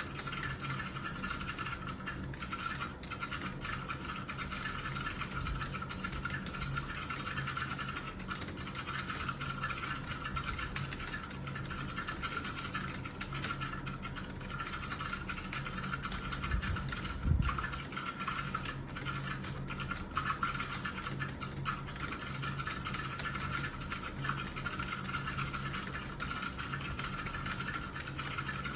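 Continuous fast typing on a computer keyboard: a dense, unbroken clatter of keystrokes over a steady low hum. About two-thirds of the way through there is one brief low thump.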